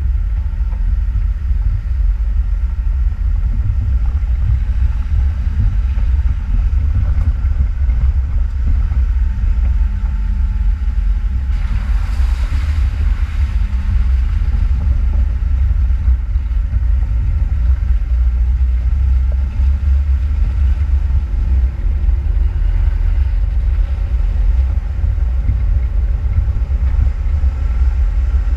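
Off-road vehicle driving along a trail: a steady low rumble of engine and running gear, with a brief hissing rush about twelve seconds in.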